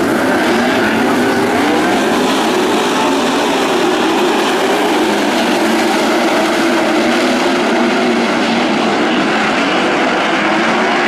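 Sprint car V8 engines racing on a dirt oval, a continuous loud engine noise whose pitch rises and falls as the cars go around the track.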